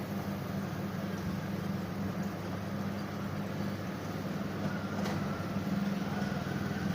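Steady low electrical hum with a background hiss, unchanging throughout, and a faint high tone joining about five seconds in.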